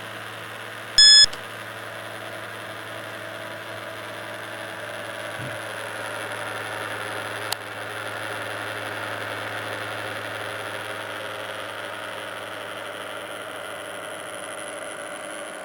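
Small DC motor of a homemade cardboard fan-cooler running steadily with a whirring hum. A short electronic beep sounds about a second in, and a single sharp click about halfway through.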